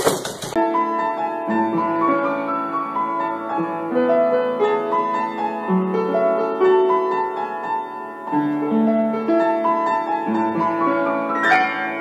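Solo piano music, a melody of struck notes over lower chords, coming in about half a second in after a brief noisy sound.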